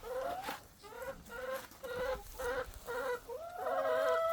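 Domestic hens clucking: a run of short pitched clucks, two or three a second, then a longer drawn-out call near the end.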